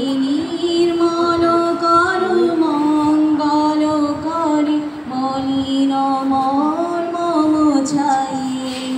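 A girl singing solo into a microphone: a slow, unaccompanied melody of long held notes.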